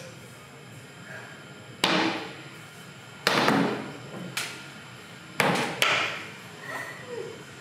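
Eskrima stick striking a stack of rubber tyres: five sharp hits, each with a short noisy tail. The last two come about half a second apart.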